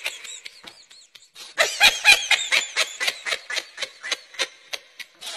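High-pitched laughter in quick, rhythmic bursts, loudest from about a second and a half in, then trailing off into fainter pulses.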